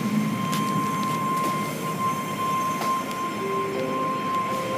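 Automated car wash machinery running: a steady rush of spraying water and motors with a constant high-pitched whine.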